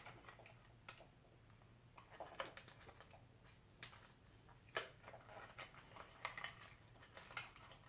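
Faint, scattered clicks and taps from the kit's photo lights and their stands being handled, about half a dozen over several seconds, above a low room hum.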